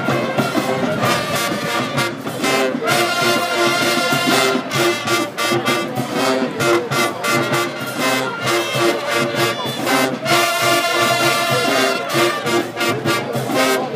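High school marching band playing: trombones and trumpets carry the tune over a steady drum beat.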